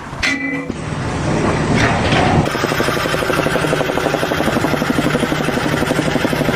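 Construction machinery running with a rapid, even pulsing that builds up over the first couple of seconds, then holds steady.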